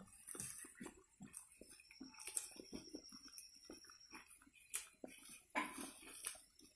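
Lambs eating dried sorghum stalks, with irregular crisp crunching and rustling of the dry stalks as they bite, pull and chew; a thin steady high tone sounds for about two seconds in the middle.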